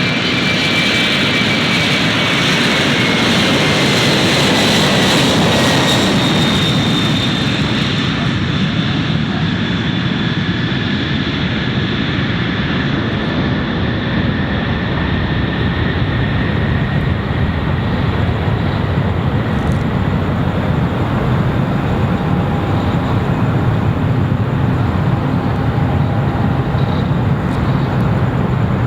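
Jet airliner's engines roaring loudly as it passes close by, with a whine that slowly falls in pitch over the first several seconds and then holds steady.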